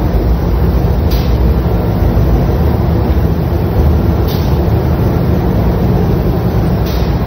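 Loud, steady running noise from gel-coat spraying in a spray booth: a deep rumble with a hiss over it, as the air-fed spray gun lays gel coat onto a boat mold. Three short, sharper hisses stand out, roughly every three seconds.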